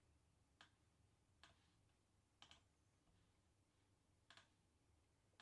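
Near silence, with four faint, short clicks spread over a few seconds.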